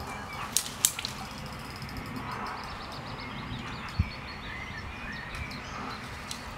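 Lakeside ambience with faint bird chirps, two sharp clicks a little under a second in, and one dull knock about four seconds in.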